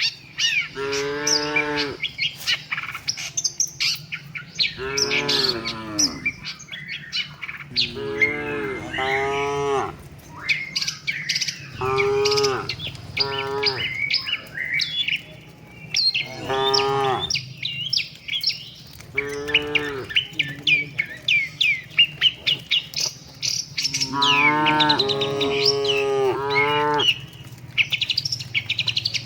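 Cattle mooing again and again, about nine calls of roughly a second each spread through the stretch, with a longer call near the end. Birds chirp throughout.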